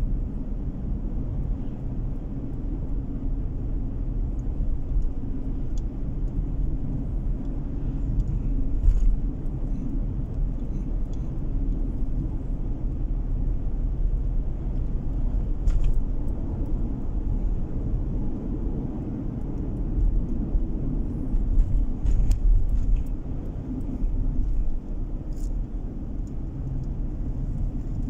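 Driving noise inside a moving car's cabin: a steady low rumble of tyres on asphalt and engine, with a few faint clicks.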